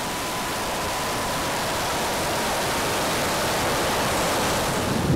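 Steady rush of air and jet noise picked up by a camera mounted on a quarter-scale RC English Electric Lightning model jet in flight, powered by twin JetCat P120 gas turbines: an even hiss that grows slowly louder, with a faint steady whine that fades out about halfway through.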